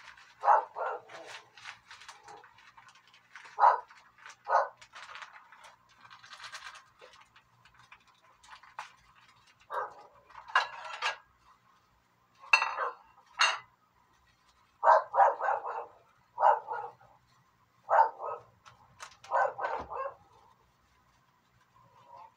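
A dog barking repeatedly, in short irregular bouts of one to several barks with pauses between.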